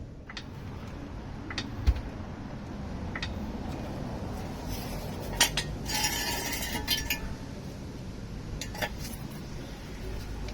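Scattered metallic clinks and knocks from steel jacking gear, a trolley jack and axle stands, being handled. There is a harsher metal scrape about six seconds in, lasting about a second.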